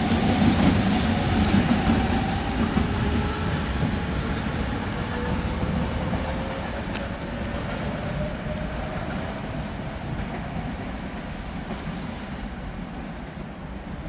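Double-deck electric regional train pulling away along the platform, its rumble and a faint whine that slowly drops in pitch fading steadily as it recedes, with a few faint clicks in the second half.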